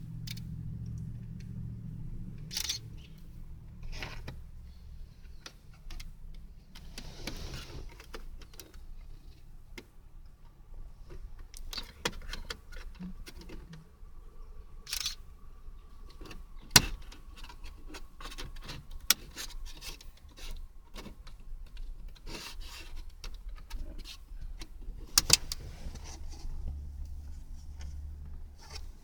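Plastic clicks, taps and rattles from prying out and handling a Subaru BRZ's plastic dash trim panel, with a few sharp snaps along the way.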